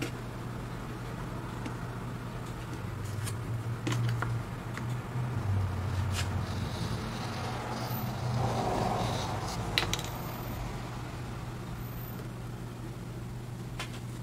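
A few light clicks and taps as thin laser-cut wooden pieces and a small glue tube are handled and set down on a wooden tabletop, the sharpest click a little before ten seconds in, over a steady low background hum.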